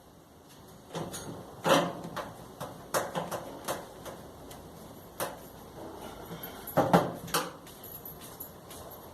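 Parts of a clothes dryer being handled during repair: irregular knocks, clicks and scrapes, the loudest a little under two seconds in and again about seven seconds in.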